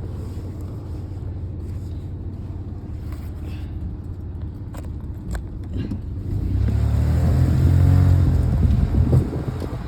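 Car running at low speed heard from inside the cabin as it pulls into a parking spot: a steady low rumble with a few clicks, then a louder low rumble that swells about two-thirds of the way through and eases off near the end.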